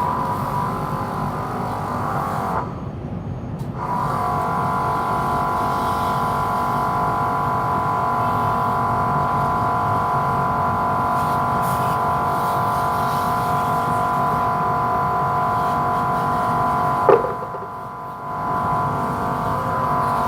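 A motor running with a steady, even whine. It cuts out for about a second near the start and again near the end, with a sharp click just before the second stop.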